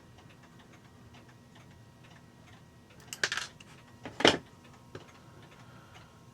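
Faint steady ticking of a mechanical clock, broken by handling sounds: a scrape about three seconds in and a louder sharp clack just after four seconds.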